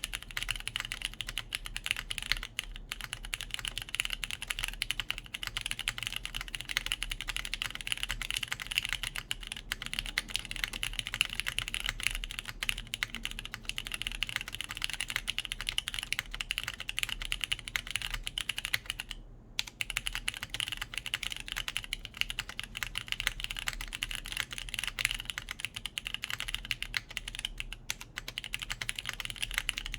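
Continuous typing on a JJW Cloudline V2 mechanical keyboard with lubed Cherry MX Brown switches, GMK keycaps and a polypropylene plate, set in O-ring mount: a fast, steady stream of key clacks with a brief pause a little past halfway.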